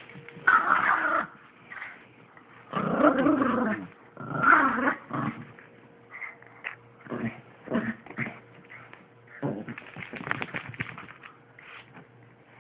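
Two rat terriers play-growling over a tug-of-war toy, in three loud bursts during the first five seconds and then shorter, fainter growls.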